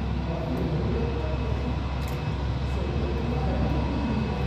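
Jet airliner engines running steadily, a constant low rumble with a faint steady whine on top.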